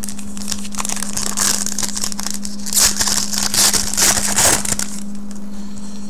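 Foil wrapper of a trading-card pack crinkling and crackling as it is handled and torn open. The crinkling comes in several dense bursts and stops about a second before the end.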